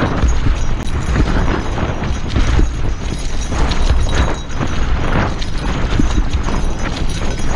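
Mountain bike riding over dry dirt singletrack: tyres rolling and crunching on the dirt, with the bike clattering and knocking over bumps. Heavy wind buffets the camera microphone as a constant low rumble.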